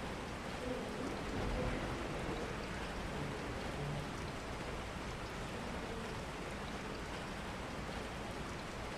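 Steady rain falling, an even wash of noise.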